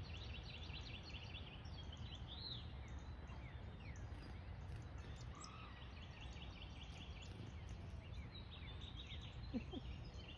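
Wild songbirds singing faintly: several quick trilled chirp series come and go over a low steady outdoor rumble.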